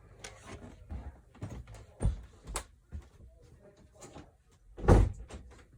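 Scattered clicks and knocks of a disassembled earbud's small parts and tools being handled on a work surface, with a heavier thump about two seconds in and the loudest one about five seconds in.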